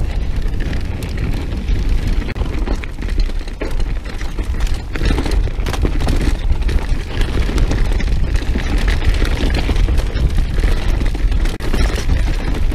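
Wind buffeting the microphone of a handlebar-mounted camera on a mountain bike descending a dirt singletrack, a constant low rumble, with frequent sharp knocks and rattles from the bike going over bumps.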